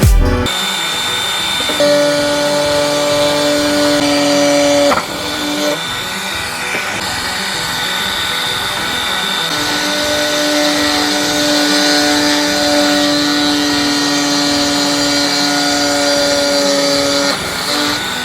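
A small power tool running steadily with a constant hum and hiss; the hum falters for a moment about five seconds in, then carries on.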